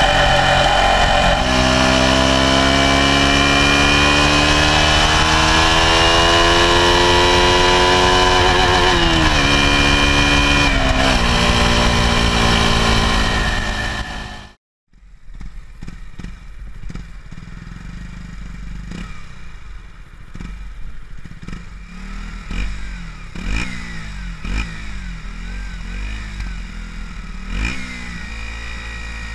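2012 KTM 125 Duke's single-cylinder four-stroke engine through its stock exhaust, revving up hard under acceleration with a brief dip like a gear change, then falling off. After a short break it runs much quieter, with a string of short throttle blips about a second apart.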